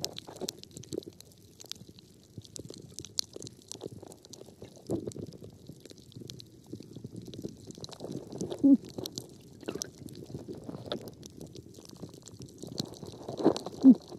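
Muffled underwater sound picked up through a camera's waterproof housing: a low gurgling rumble of moving water with scattered faint crackling clicks. Two louder bubbly gurgles with a short falling pitch stand out, about nine seconds in and near the end.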